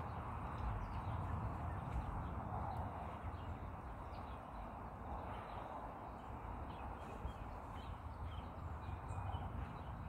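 Outdoor ambience: a steady low rumble and hiss, with faint, scattered bird chirps, more of them in the second half.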